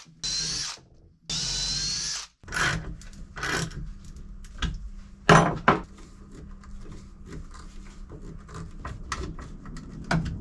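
Cordless drill-driver run in two short bursts, a second or so each, with a rising whine as it drives screws into a wooden block. Then scattered clicks and knocks of parts being handled, the loudest knock about five seconds in.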